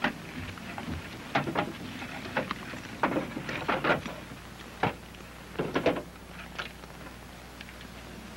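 Footsteps of several men in boots walking away on a dirt street: a run of uneven, scuffing knocks that cluster in the middle.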